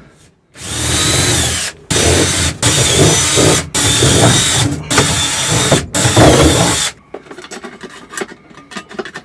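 Power drill running in about five bursts with brief pauses between them, stopping about seven seconds in.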